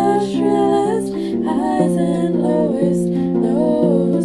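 Background music: a soft sung melody over held instrumental notes.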